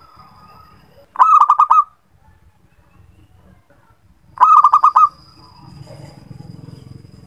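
Zebra dove (perkutut) cooing: two short phrases of quick staccato coo notes, about three seconds apart.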